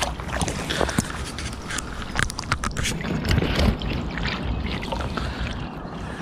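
Lake water sloshing and splashing around a landing net being worked through the shallows, with irregular small splashes and knocks, loudest about three to four seconds in.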